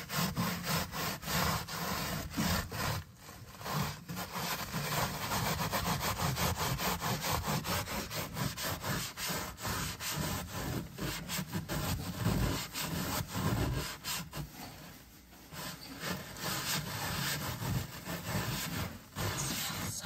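Scouring sponge scrubbing grime off a soapy metal baking sheet in rapid back-and-forth strokes, pausing briefly about three seconds in and again past the middle.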